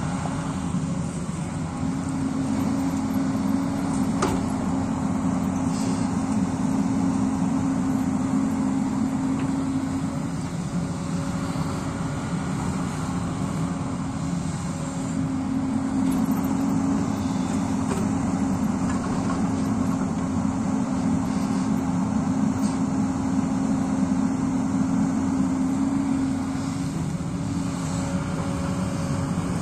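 Diesel engine of a Hyundai crawler excavator running under load as it digs and lifts soil. Its note swells and eases as the arm works, and there is one sharp knock about four seconds in.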